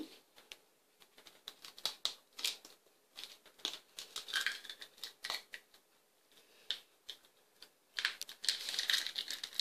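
A large hen's eggshell cracking and being pried apart by fingers over a ceramic bowl: scattered small clicks and crackles, with a denser run of crackling near the end.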